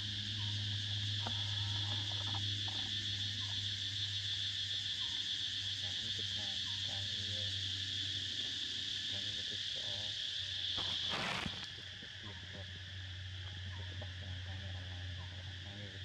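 A steady high-pitched chorus of insects buzzing in the forest, over a low steady hum. About two-thirds of the way in, a brief rush of noise is heard and the insect chorus turns quieter.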